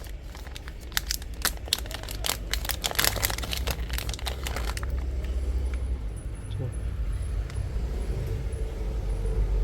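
Rapid clicking and crinkling of small objects being handled for about five seconds, then a steady low rumble.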